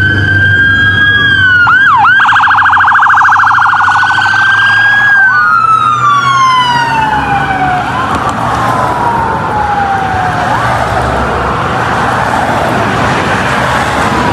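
Vietnamese traffic-police siren cycling through its tones: a slow rise-and-fall wail, a rapid warbling yelp for about three seconds, then long falling wails that repeat. A low steady rumble runs underneath.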